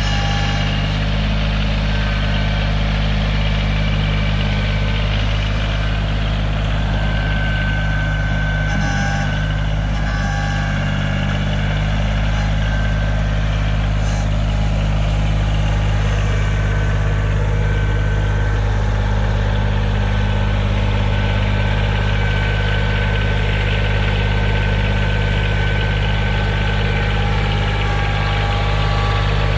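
Backhoe engine running steadily at a low, even speed, a continuous low hum.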